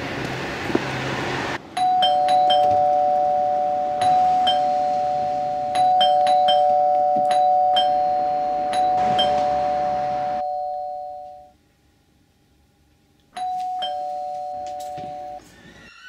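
Two-note doorbell chime rung over and over, a higher note followed at once by a lower one and struck again every second or so. It breaks off into a short silence, then rings once more near the end.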